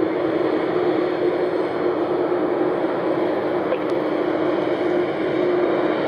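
Jet engines of a FedEx Airbus A300 freighter at idle thrust as it taxis past: a steady rushing hiss with a constant low hum.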